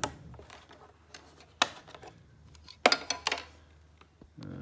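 Dishes clinking and clattering as a dishwasher is unloaded: a single sharp clink about one and a half seconds in, then a quick cluster of several clinks about three seconds in, over a low steady hum.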